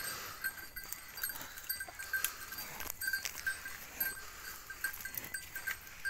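Livestock bell clinking in short, irregular rings, about three a second, as the cattle walk. Footsteps crunch on dry pine needles and twigs.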